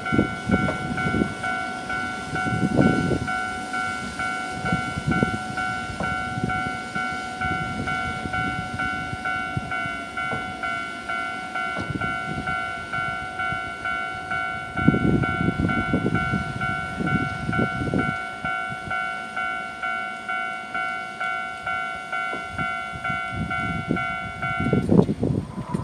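Japanese level-crossing alarm bell dinging over and over, the warning that a train is coming, while a Hiroden electric train rumbles and clatters over the crossing, loudest about 15 to 18 seconds in. The bell stops just before the end.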